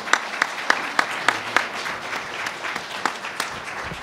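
Audience applauding. Some single claps stand out sharply in the first second and a half, over a steady mass of clapping.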